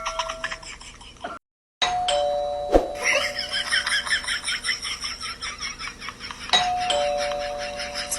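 Electronic two-tone "ding-dong" doorbell chime, a higher note then a lower one, sounding twice about four and a half seconds apart. A sharp click comes just after the first chime.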